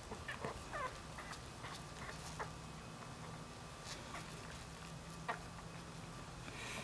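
Newborn Dachshund–Jack Russell puppy giving one faint short squeak a little under a second in, with soft scattered clicks as the puppies nuzzle against their mother.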